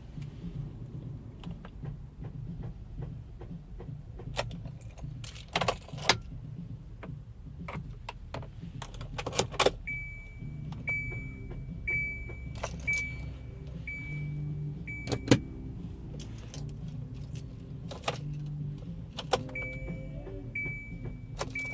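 A car's warning chime beeps steadily at about one beep a second in two runs, while keys jangle and several sharp clicks and knocks sound over a steady low hum, in a 2015 Kia Soul that will not start.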